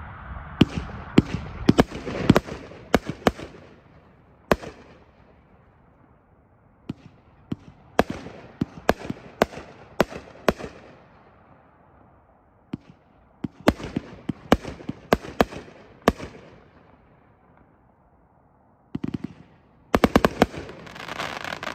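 Pyro Demon 500-gram repeater cake firing. Sharp shot reports come in clusters with short lulls between them, and each trails off into crackling stars. A dense run of crackle comes near the end.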